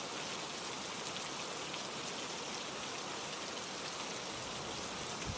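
Steady rainfall, an even hiss of rain falling on a surface.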